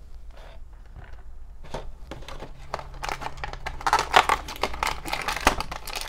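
A small foil blind bag being handled and torn open, crinkling. A few light clicks at first, then busy crinkling from about three seconds in.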